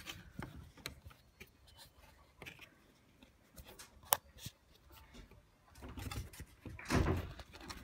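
Hands pushing a Ford Focus Mk2 bonnet lock cylinder out of its plastic latch behind the grille: faint plastic scraping and rubbing with light clicks, one sharp click about four seconds in, and louder handling noise near the end.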